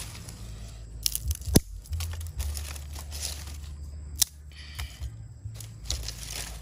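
Dry sticks and twigs being handled and laid for a fire: crackly rustling with several sharp snaps, the loudest about a second and a half in, over a steady low rumble.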